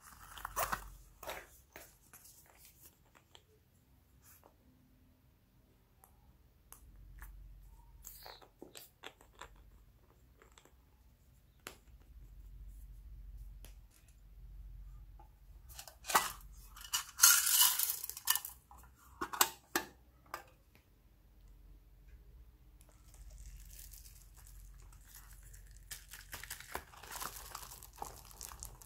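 Handling noises from slime-craft materials. A zipper is pulled on a banana-shaped toy pouch in the first second or so. About halfway through comes a loud patch of dense crackling and rustling lasting a few seconds, then a softer hiss near the end.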